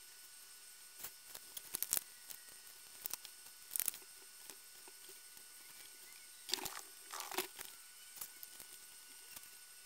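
Faint scattered clicks and short rustles from small wires and a soldering iron being handled while wiring is soldered. The loudest clusters come about two seconds in and again a little past the middle.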